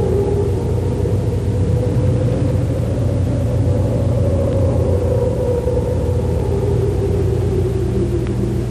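Steady low engine rumble of a moving vehicle, its pitch sagging slightly a few seconds in.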